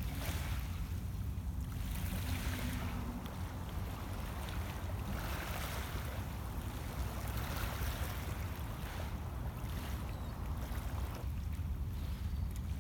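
Small lake waves lapping on a pebble shore, a soft hissing wash every couple of seconds, over a steady low rumble.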